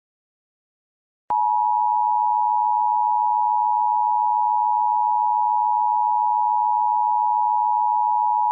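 Emergency Alert System attention signal: a steady two-tone beep (853 and 960 Hz together) that starts abruptly about a second in after a brief silence and holds unchanged. It marks the start of an emergency alert broadcast, here a tornado warning update.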